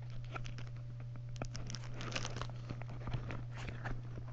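Plastic packaging crinkling and rustling as it is handled during unpacking, in an irregular string of small crackles, over a steady low hum.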